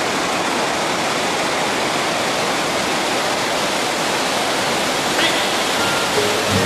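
Iguazu Falls: the steady rush of large waterfalls pouring down into the river gorge, an even, unbroken noise of falling water.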